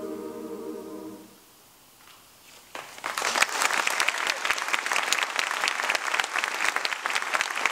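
A mixed chamber choir holds its final chord, which dies away about a second in. After a brief hush, the audience breaks into steady applause a little under three seconds in.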